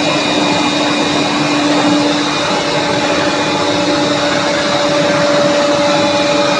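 Woodworking shop machinery running steadily: a loud continuous whir with a constant low hum, and a higher tone coming in about halfway through.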